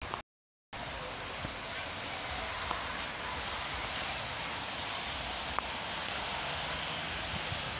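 Steady hiss of rain on a wet street, with a few faint ticks. The audio drops out completely for about half a second at the start.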